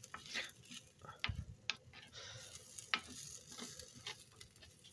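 Rice frying on a hot pan with a faint sizzle, and a few sharp scrapes and taps of a spatula stirring it.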